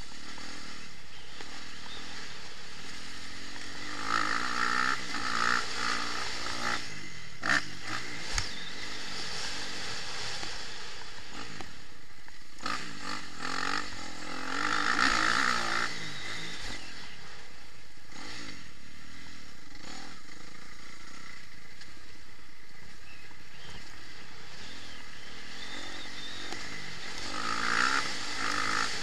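Motocross dirt bike's engine heard from a camera mounted on the bike, running over rough track with wind and rattle, revving up in surges about four seconds in, again for a few seconds in the middle, and once more near the end. A couple of sharp knocks sound about halfway through the first third.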